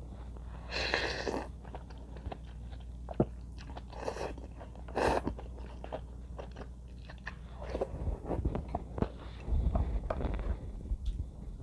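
Close-miked eating: a person slurps soup and long strips of cooked green onion (yukgaejang) from a spoon, with loud slurps about a second in and again around four and five seconds in, then chews wetly.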